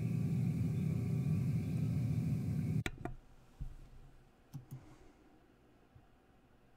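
A steady low rumble cuts off abruptly about three seconds in. Sharp computer mouse clicks follow, two close together and then two more a second and a half later, over faint room tone.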